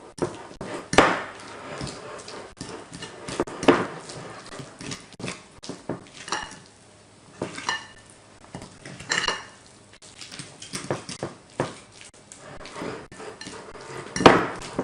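Dishes and cutlery clattering: a run of short clinks and knocks at irregular intervals, the loudest about a second in, near four seconds and just before the end.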